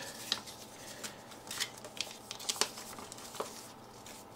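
Soft rustling and a few faint clicks from a folded paper instruction booklet and clear plastic bags of LEGO bricks being handled.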